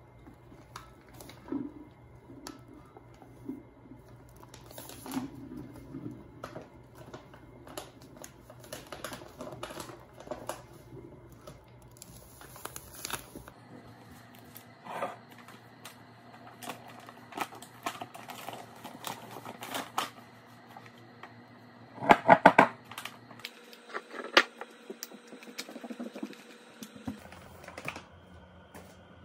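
Paper flour bag crinkling and rustling as flour is poured and shaken into a large glass Mason jar, with many light taps and clicks against the glass. About three-quarters of the way through comes a quick run of loud knocks.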